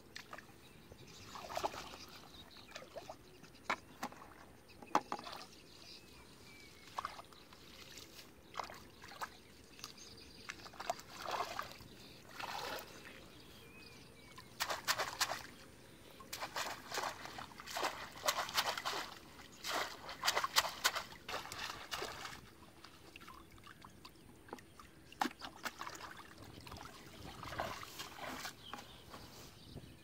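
Shallow muddy water splashing and sloshing in irregular bursts as a bamboo box fish trap is worked loose and lifted out by hand, with wading steps through the water.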